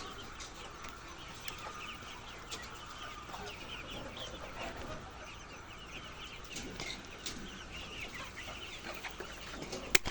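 A large flock of egg-laying hens clucking together in a steady chorus of many overlapping short calls, with a sharp click right at the end.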